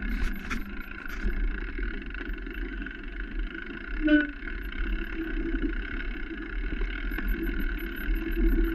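Mountain bike riding fast down a dirt singletrack, heard from a camera on the bike or rider: a steady rumble of wind on the microphone and tyres on dirt, with rattles and a few sharp clicks near the start. A brief pitched sound about four seconds in.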